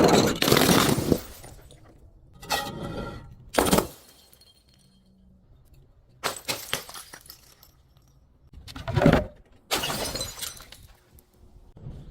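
Glass bottles shattering and crunching under crushing, in about six separate bursts with quieter gaps between them.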